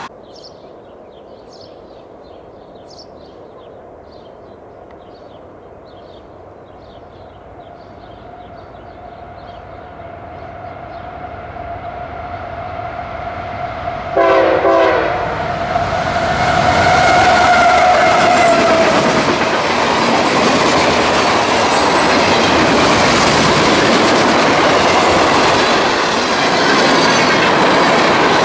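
A diesel freight train approaches and passes as birds chirp. Its horn gives a short blast about halfway through, then a longer one, and the train goes by loudly with wheels clacking over the rail joints.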